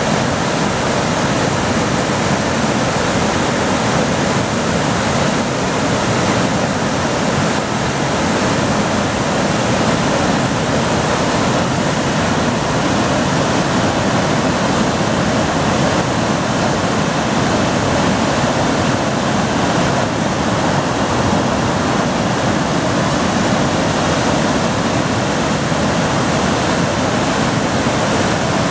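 Bald River Falls running high after heavy rain: a loud, steady rush of water plunging over the rock ledge into the pool below.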